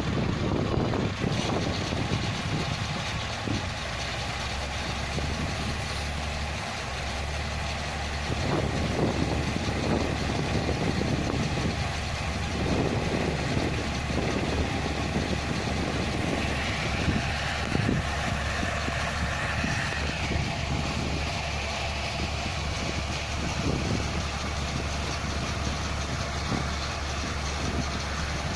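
Hino diesel engine in a John Deere rice combine harvester, running steadily at a low idle.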